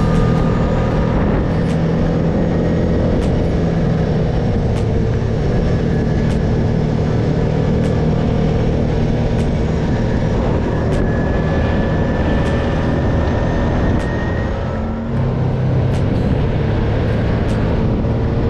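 Side-by-side UTV engine running under way, a steady drone with a short dip in level about fifteen seconds in before it picks back up.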